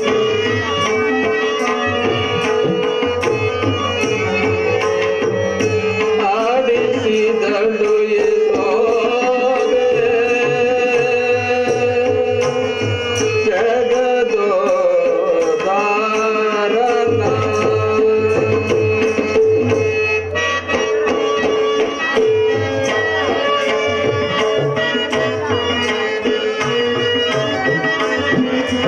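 Live drama music: a tabla playing a steady rhythm under held melodic notes, with a voice singing gliding lines in the middle.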